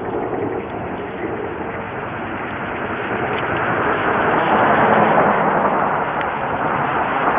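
Road traffic passing by: a steady rush of tyre and engine noise that swells from about halfway through.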